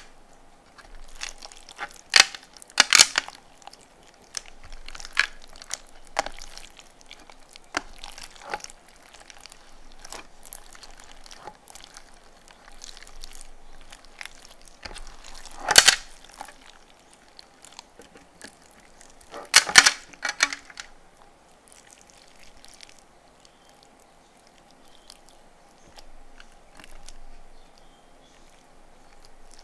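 Yellow slime studded with water beads being kneaded and squeezed by hand: wet squishing broken by sharp pops and crackles as air pockets burst, the loudest a few seconds in, about halfway through and about two-thirds through.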